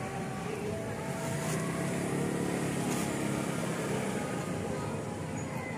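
Steady low engine rumble of a motor vehicle, swelling about two seconds in and easing off, with a couple of faint light clicks.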